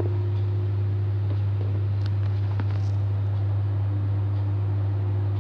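Steady low electrical hum, like an appliance motor or mains hum, unchanging throughout, with a couple of faint clicks about two seconds in.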